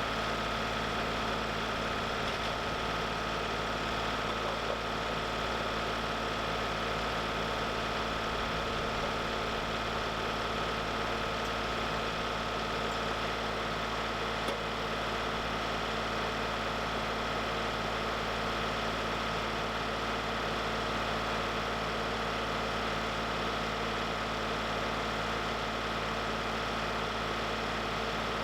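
Portable sawmill's engine running steadily, with a constant high whine over a low drone and no change in speed.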